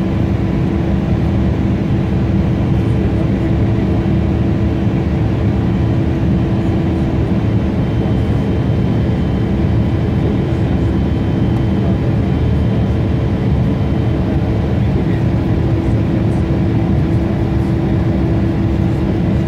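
Steady jet cabin noise of an Embraer 170 in flight, heard from inside the cabin: its General Electric CF34-8E turbofans and the airflow make a constant deep rushing drone with a steady low hum running through it.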